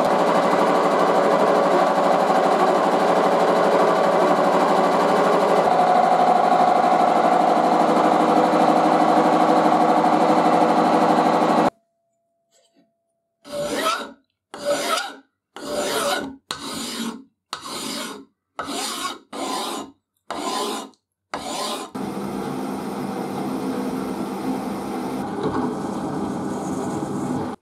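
Milling machine face-milling a steel workpiece: a steady cutting noise that stops about twelve seconds in. After a short silence, a hand file is pushed across a steel plate clamped in a vise, about nine strokes roughly one a second. Then a steady machining noise returns as a spinning cutter works into a steel block.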